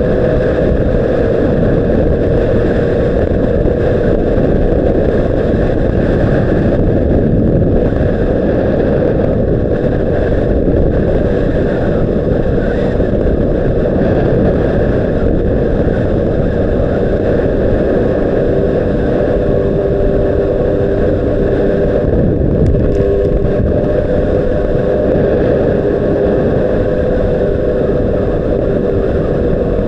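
Honda CBR600RR inline-four engine running steadily at a constant cruise. The engine note holds nearly even, dropping a little in pitch about twenty seconds in.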